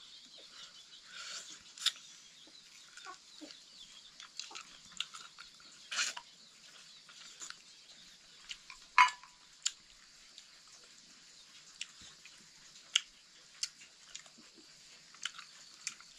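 Faint, scattered short clicks and taps of fingers and food against steel plates as a meal is eaten by hand, over a steady faint hiss. One louder sharp click comes about nine seconds in.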